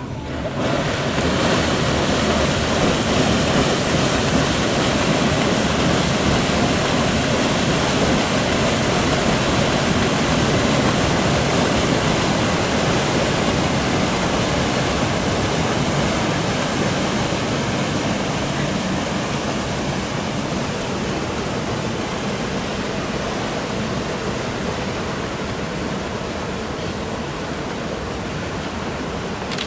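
Paddle wheels of the 1906 paddle steamer Blümlisalp churning the lake water as the ship pulls away from the landing stage: a steady rushing wash that comes up sharply in the first second and slowly fades.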